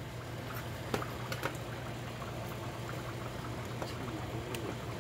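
Large pot of cabbage soup simmering and bubbling, over a steady low hum. A few light clicks and taps come as fried chicken pieces are handled and dropped into the pot.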